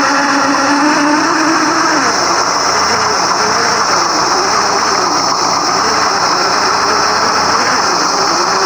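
Simulated engine sound from an FMS radio-controlled scale car's sound module, its pitch wavering up and down as the throttle changes, over a steady high whine.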